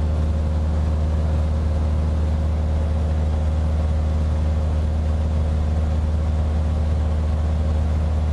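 Light aircraft's piston engine droning steadily, heard from inside the cabin in flight.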